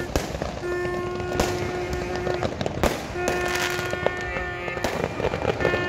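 Fireworks going off, sharp bangs about every second or so. Behind them a long held tone sounds twice, about two seconds each time.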